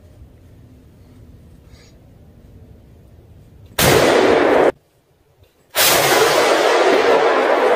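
A rifle shot fired from inside a ground blind at a deer, about four seconds in, overloading the recording. The sound cuts out for about a second, then comes back loud and distorted and stays that way.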